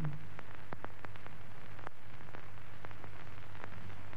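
Noise of a historic 1932 radio broadcast recording: a steady low hum and hiss with irregular clicks and crackles.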